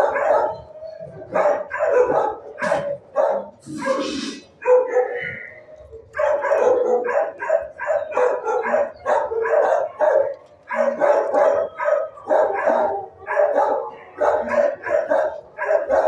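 Shelter dogs barking in their kennels: short barks repeating about three a second, with a brief lull about five seconds in.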